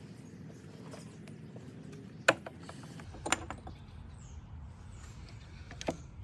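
Scattered metal clicks and knocks from tools and engine parts during a top-end teardown of a Kawasaki KX100 two-stroke engine, the sharpest about two seconds in, over a low steady hum.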